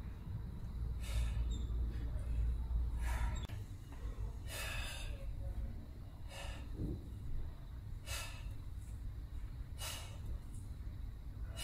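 A man's short, forceful breaths, about one every second and a half to two seconds, timed to the reps of a barbell curl: the breathing of heavy exertion. A low rumble lies under the first few seconds.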